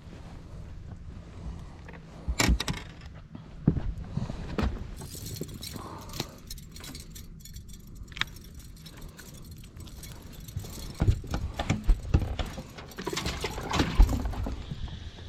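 Handling noises in a fishing boat: a run of clicks and knocks with a light metallic jingle. They are loudest about two and a half seconds in and again over the last few seconds.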